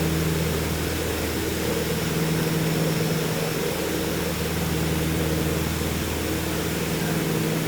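Piper PA-30 Twin Comanche's two four-cylinder Lycoming engines and propellers, droning steadily as a hum of several even tones over a constant hiss of air noise.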